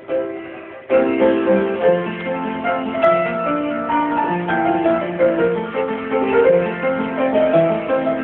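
Piano played with both hands, a melody over lower held notes, picking up into continuous playing about a second in.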